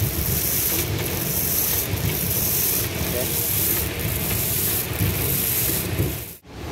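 Palm kernels pouring off the end of a conveyor into a kernel bunker: a steady gritty hissing rush over the low rumble of the crushing plant's machinery. The sound breaks off for a moment near the end.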